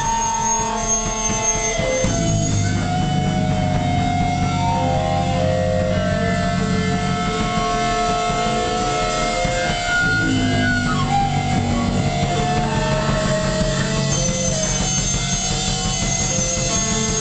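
Live band playing loud music, led by an amplified electric guitar with long held notes.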